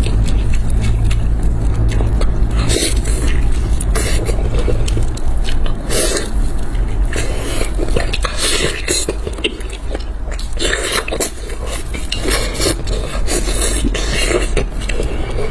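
Close-up eating sounds: a person biting and chewing food, with many irregular crisp clicks and scrapes. A low steady hum underneath stops about five seconds in.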